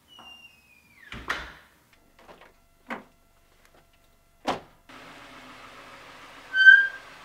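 A short squeak falling in pitch, then three door thuds as a house door and an SUV door are shut. The SUV's engine then runs with a steady hum, with a short loud beep near the end.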